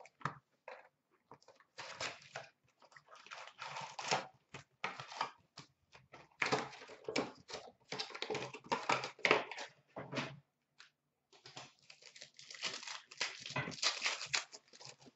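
Hockey card boxes and card-pack wrappers being torn open by hand, with irregular bursts of ripping and crinkling and short gaps between them.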